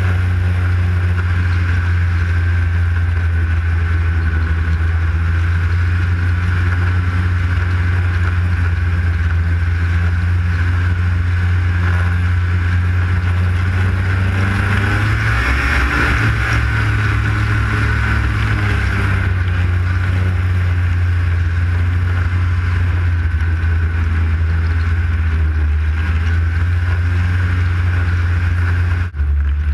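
Arctic Cat snowmobile engine running steadily at trail speed, heard from the rider's seat, with a low drone. The engine note shifts briefly about halfway through, and the sound dips for a moment near the end.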